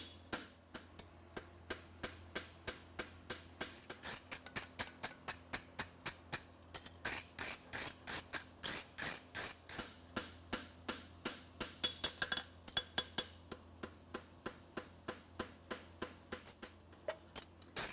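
A hand hammer strikes a hot steel horseshoe on an anvil in a quick steady rhythm, about three to four blows a second, flattening the shoe. Some blows ring briefly.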